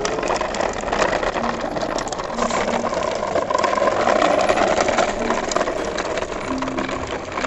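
A plastic toy truck and trailer rolling over rough concrete, the hard plastic wheels and body giving a steady rattling rumble.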